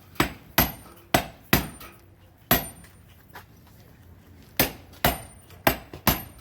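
Hammer striking a steel chisel set into an iron bloom: nine sharp metallic blows, five in quick succession, then a pause of about two seconds, then four more. The chisel is being driven in to split the bloom.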